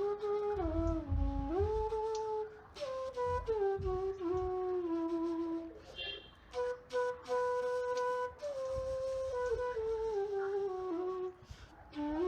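Background music: a slow solo flute melody of long held notes that slide from one pitch to the next.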